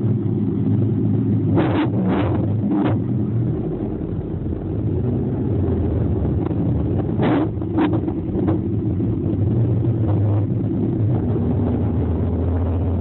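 Car running with a steady low rumble, with a few short sharp clicks now and then.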